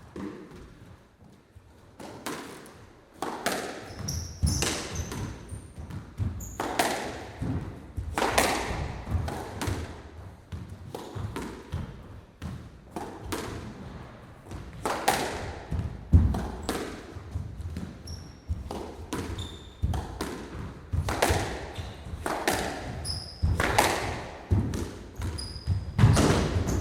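Squash rally in an echoing court: sharp racket strikes and the ball hitting the walls in quick succession, with short high squeaks now and then. It starts quietly and the hits begin about two seconds in.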